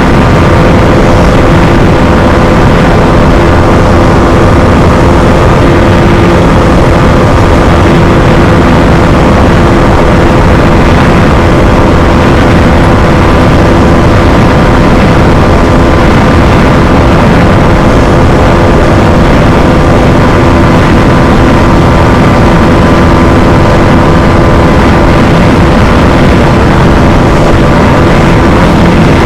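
Bajaj Dominar 250's single-cylinder engine held at a steady high speed in fifth gear during a top speed run, its note not changing in pitch, with loud wind rush over it.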